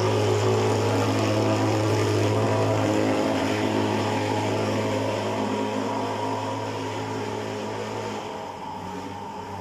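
Thermal fogging machine running, a steady low engine drone spraying insecticide smoke against mosquitoes; it slowly grows fainter over the last few seconds.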